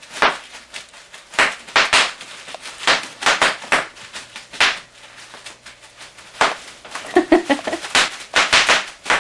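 Bubble wrap being popped: an irregular run of sharp, loud pops, a dozen or more, some in quick pairs.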